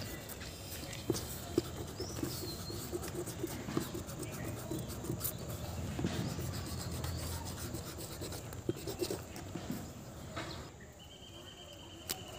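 A pencil's eraser end rubbing back and forth on drawing paper in short irregular strokes, stopping a little over ten seconds in. A faint steady high tone sounds near the end.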